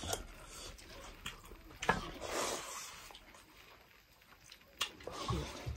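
Close eating sounds of rice and goat-meat soup: chewing and wet mouth noises, with scattered small clicks and a louder hissy, wet stretch about two seconds in.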